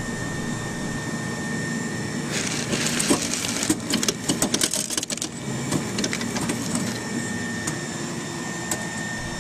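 Small plastic molded parts and runners rustling and clicking as a hand digs through a pile of them, starting about two seconds in and lasting about three seconds. A steady machine hum runs underneath.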